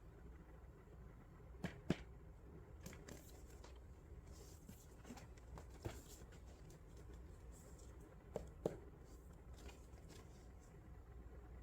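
Plastic keycaps being handled: a few light clicks, two quick pairs and one single, over faint rustling and ticking.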